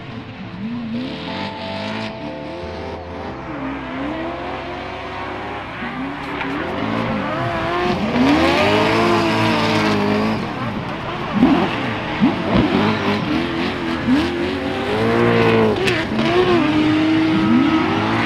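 Two drift cars sliding in tandem, one of them a Nissan S13 with a sprint-car V8. Their engines rev up and down again and again over the steady hiss of spinning tyres, growing louder about a third of the way in. There are a few sharp cracks around the middle.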